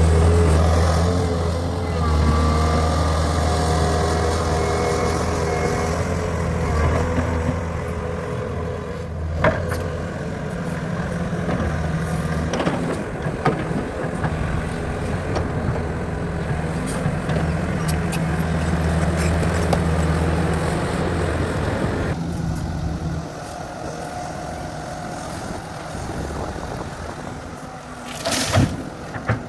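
Heavy diesel construction machinery running with a steady low engine drone, with a few knocks and clanks; the drone drops off about two-thirds of the way through, and a sharp clank comes near the end.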